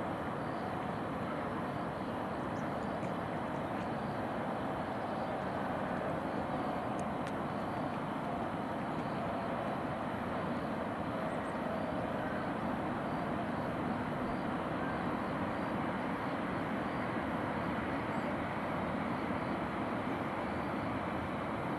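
Steady distant urban hum: a low, even rush of far-off traffic and town noise with no single event standing out.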